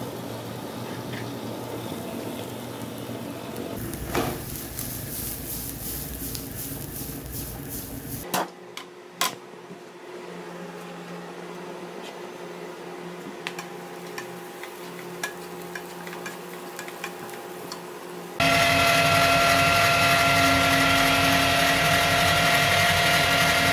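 Chopped onion and red bell pepper sizzling in a frying pan while being stirred, with light spatula scrapes and taps. After a cut about eight seconds in, quieter frying over a steady low hum. About eighteen seconds in, an electric meat grinder cuts in, running loud and steady as it minces chicken.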